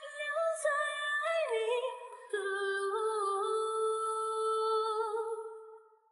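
Background music: a sung or hummed melody of long held notes that steps down in pitch twice and fades out near the end.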